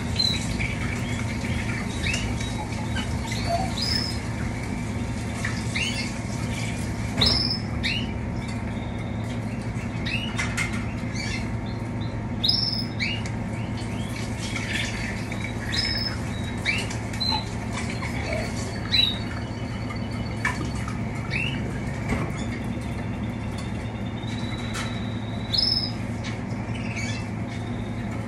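Caged canaries giving short, scattered chirps and calls, with some wing fluttering, over a steady low hum.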